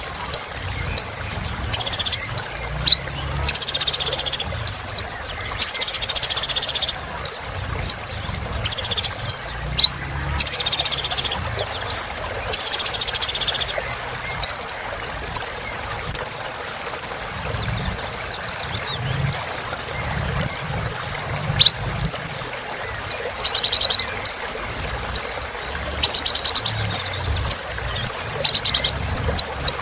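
Kolibri ninja (a sunbird) singing in full, non-stop song: rapid high, thin sweeping chirps alternating with fast buzzy trills, repeated throughout.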